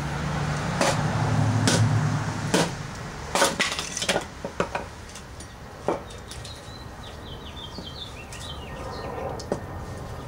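Batoning wood: a baton strikes the spine of a Cold Steel Magnum Kukri machete, driving the blade into a piece of wood, as a series of sharp knocks. The knocks come in a quick cluster a few seconds in, then more sparsely. A low steady drone runs under the first couple of seconds.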